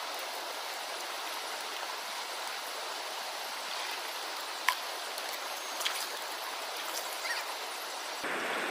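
Steady rush of flowing river water, with a few sharp clicks about halfway through. The rush turns fuller and louder near the end.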